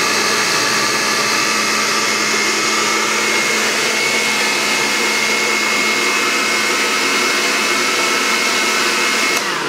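Countertop blender with a glass jar running steadily at a constant pitch, its motor whining as it blends spinach into a green smoothie. Near the end it is switched off and the sound dies away.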